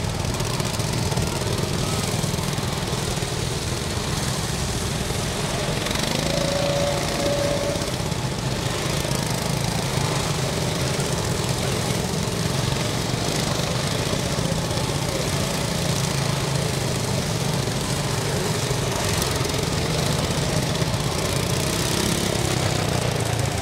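Several small gasoline engines on wooden-barrel go-karts running steadily as the karts drive past in a group.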